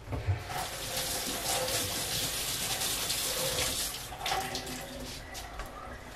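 Water running from a tap into a sink, starting just after the beginning and shut off about four seconds in.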